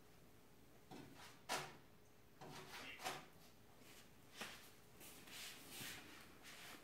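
Faint kitchen handling noises: a few soft knocks and clicks with light rustling as a cooked tortilla is picked up from the stove.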